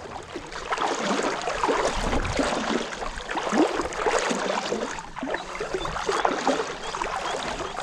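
Legs wading through knee-deep estuary water, with continuous sloshing and splashing as each step churns the water.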